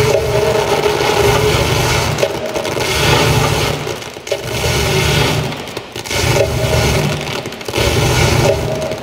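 Noisy experimental electronic sound-art performance: a dense scraping hiss with a low rumble, swelling and dropping every second or two, with a few faint held tones underneath.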